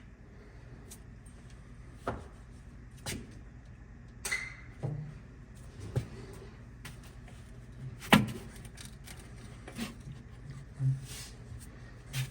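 Scattered metallic clinks and knocks of hand tools working on a bus's suspension hardware, one with a brief ring and the loudest about eight seconds in, over a low steady hum.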